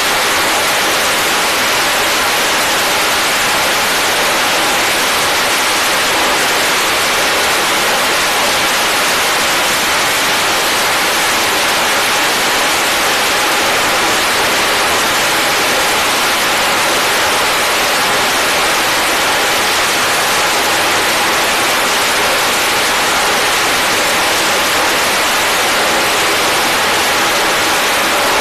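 Twin jet engines of an F/A-18 fighter running at full power with afterburner, held on a carrier catapult for launch: a loud, steady, even noise that does not change.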